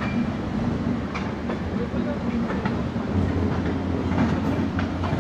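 Suburban electric local train running on the track, heard from aboard through an open window: a steady low rumble with scattered clicks of wheels over rail joints. A low hum grows stronger about three seconds in.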